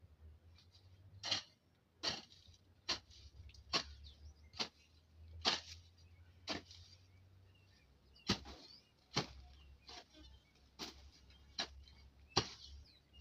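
A hand farm tool chopping into grass and soil, in a steady rhythm of short sharp strikes about one a second, as in weeding with a jembe or panga.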